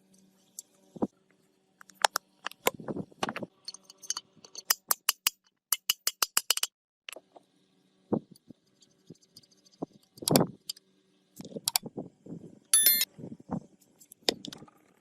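Metal parts and hand tools clinking, tapping and clattering, with a quick run of light strikes midway and a short metallic ring near the end.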